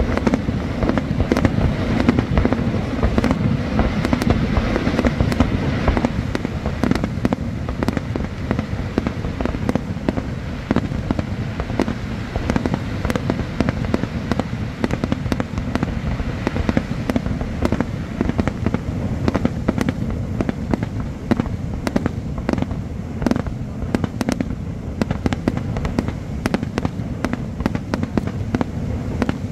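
Fireworks display: a rapid, continuous run of bangs and crackles over a steady low rumble, with separate sharp cracks standing out more clearly in the second half.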